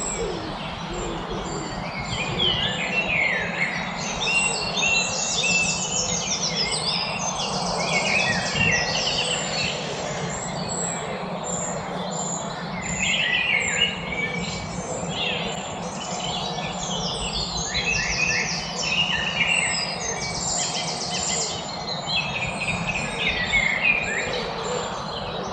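Several songbirds singing at once in a dense chorus of chirps, whistled phrases and rapid buzzy trills, over a steady low background noise.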